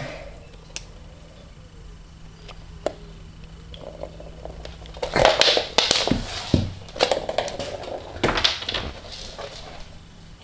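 A cat scrabbling on a wooden floor as it bats at a ball of sellotape: a few faint clicks, then from about five seconds in a busy run of scrapes, scuffs and light knocks for several seconds.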